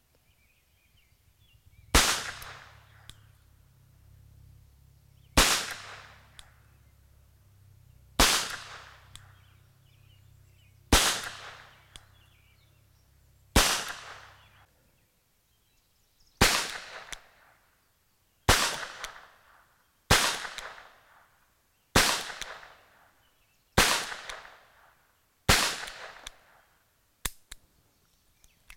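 Webley & Scott Mark IV top-break revolver firing .38 S&W lead-nose rounds, single shots with a short ringing tail after each. There are about a dozen shots: five about three seconds apart, then a brief gap, then a quicker string about two seconds apart.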